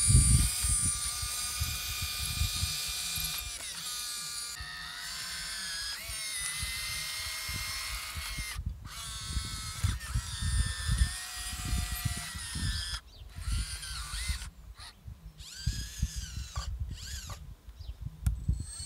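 Electric hydraulic pump of a hydraulic RC excavator whining as the boom and bucket are worked, its pitch stepping up and down with load. It cuts out briefly several times in the second half, because the pump runs only while a control is moved and is not yet switched on permanently.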